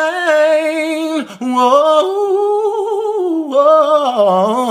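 A man singing a cappella, a wordless run of sustained notes with vibrato. There is a brief break for breath about a second in, and the line steps down in pitch near the end.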